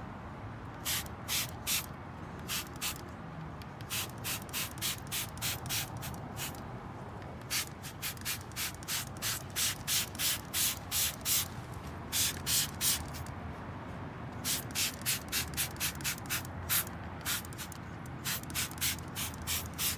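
Hand trigger spray bottle squirting cleaner onto an alloy wheel: quick runs of short hissing sprays, about two to three a second, with brief pauses between runs.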